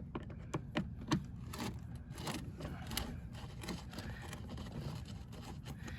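Plastic door sill trim being worked loose by hand: an irregular run of small clicks, taps and scrapes.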